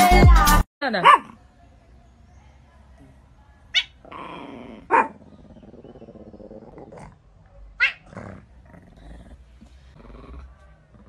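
Black-and-white domestic cat giving a low growl, broken by four short, sharp cries or hisses; the first cry falls in pitch. Dance music cuts off under a second in.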